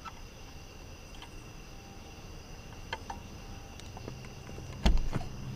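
Crickets chirping steadily in the background. Several light plastic clicks and one sharp knock near the end come from hands working on a car's interior light fixture.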